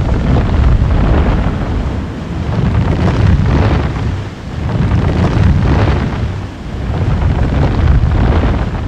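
Masaya volcano's lava lake churning: a loud, deep rumbling roar that swells and fades in waves about every two to three seconds.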